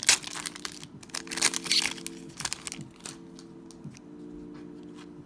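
Hockey trading cards handled by hand, with the crinkle of foil pack wrappers: a run of quick flicks, slides and rustles, busiest in the first two seconds, over a faint steady hum.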